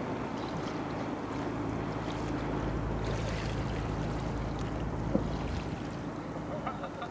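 Wind on the microphone and sea water against the breakwater, under a steady low hum. There is one sharp click about five seconds in.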